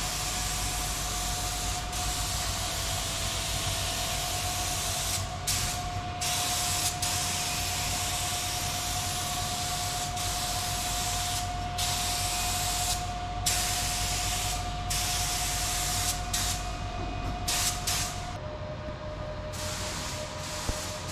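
Paint spray gun hissing steadily as undercoat is sprayed onto a steel boat hull, with several short breaks in the spray. Under it runs a steady machine hum that drops slightly in pitch near the end.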